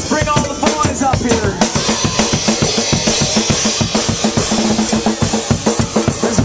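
Live band playing with the drum kit to the fore: a fast, steady beat of bass drum and snare, with cymbals washing in after about a second and a half.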